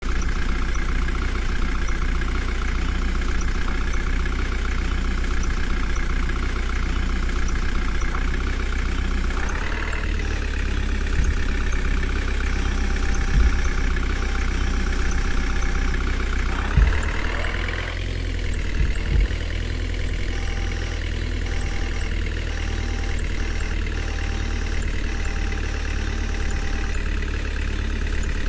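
Diesel engine of a JCB 3DX backhoe loader running steadily, rising in pitch twice as it comes under load while digging and loading mud. There are a few short thuds in between.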